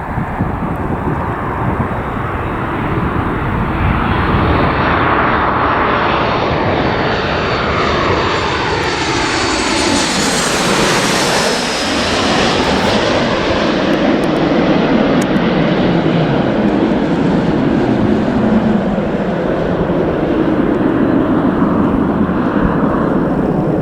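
Landing airliner passing close by. Its engine whine and rumble build up, the tones slide down in pitch as it goes past about ten seconds in, and a steady rumble follows as it moves away.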